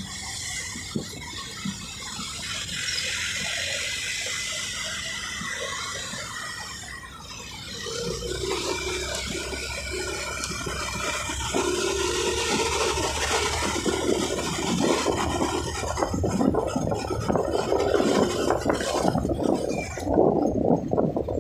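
Wind buffeting the microphone and road noise while riding a two-wheeler through city traffic. The rush grows louder and more ragged in the second half.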